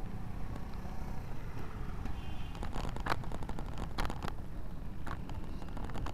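Steady low rumble of wind and tyre noise on a bike-mounted camera's microphone while riding along a concrete street, with sharp rattles from the bike about three seconds in, twice around four seconds and again near five seconds as it jolts over bumps.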